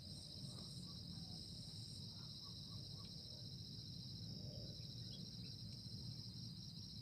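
A steady, unbroken chorus of insects trilling at a high pitch, over a low outdoor rumble.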